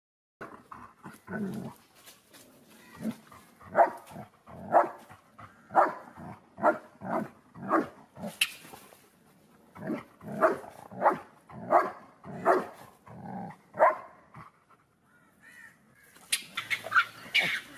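Dog barking over and over, about once a second, while it attacks a mongoose. After a short pause near the end come quicker, higher, sharper cries.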